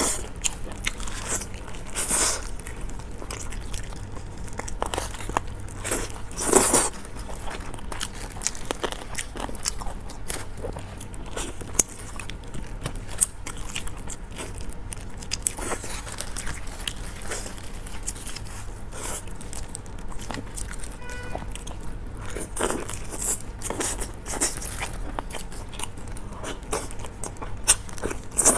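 Close-miked biting and chewing of spicy steamed chicken: irregular wet mouth sounds and small crunches, a few bites louder than the rest, as the meat is torn from the bird by gloved hands.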